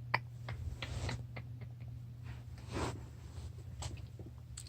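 Quiet room with a steady low hum, scattered faint clicks and light handling noise, and one soft breath-like swell just under three seconds in.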